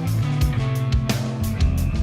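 Background music: a rock track with guitar and drums keeping a steady beat.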